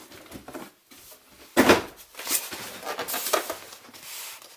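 A large cardboard box being handled and moved: scraping and rustling, with one loud thump about one and a half seconds in and a few lighter knocks after it.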